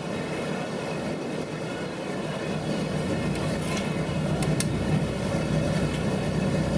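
Boat engine running with a steady low drone that grows louder about halfway through.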